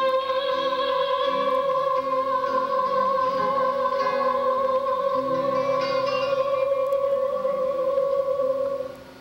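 A woman holds one long, high sung note as the song's closing note, over a guitar accompaniment whose lower notes change beneath it. The note and accompaniment stop about nine seconds in.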